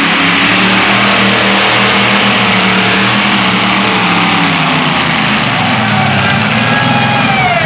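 Modified pulling tractor's engine running hard under heavy load as it drags the weight-transfer sled, a loud steady roar. Its note starts to fall away at the very end as the pull dies.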